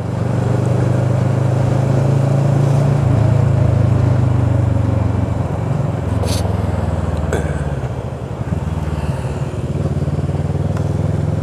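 Motorcycle engine running steadily at low speed in traffic, heard from the rider's seat, easing off about eight seconds in and then picking up again.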